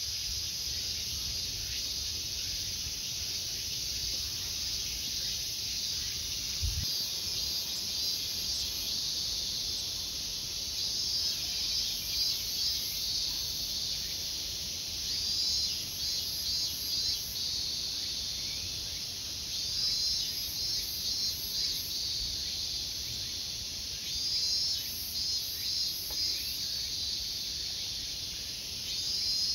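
Summer cicadas shrilling in a steady high hiss. Through the second half, pulsed bursts of song swell and fade every few seconds.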